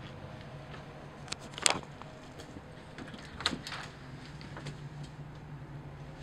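Clicks and knocks of a wooden interior door being handled and swung open, the loudest about two seconds in and another about halfway through, over a steady low hum.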